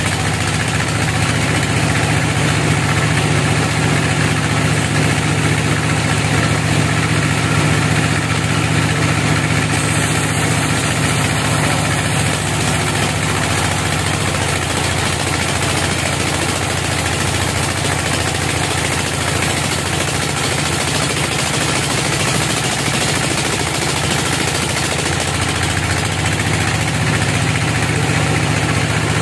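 Band sawmill running steadily, its blade cutting lengthwise through a teak log: a continuous machine hum under the hiss of the cut.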